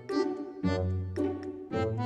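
Background music: a melody over bass notes, changing about every half second in a steady beat.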